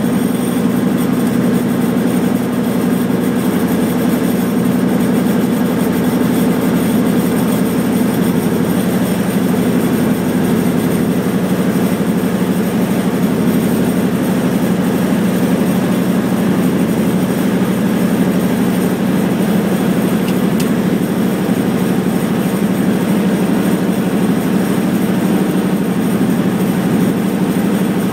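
Schweizer 300CBi helicopter's four-cylinder Lycoming piston engine running steadily after start-up, a loud even hum heard from inside the cockpit.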